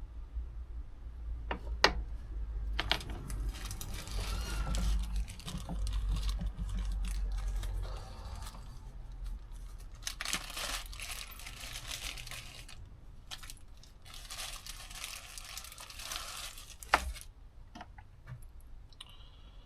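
Bench handling noises while the main jet is taken out of a PH61A carburettor. Small metal parts and tools click sharply about two seconds in and again near the end, with stretches of rustling and scraping between.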